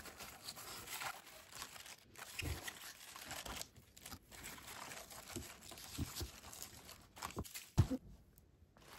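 Napa cabbage leaves rustling and crunching softly as hands rub salt in between them, with a single knock near the end.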